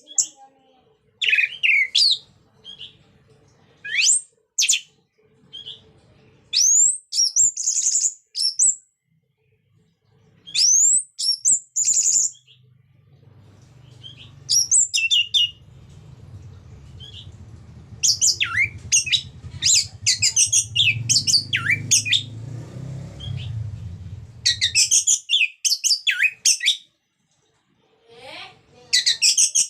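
Orange-headed thrush (anis merah) singing: phrases of quick, high, sliding whistled notes with pauses between them, coming fast and dense in the second half.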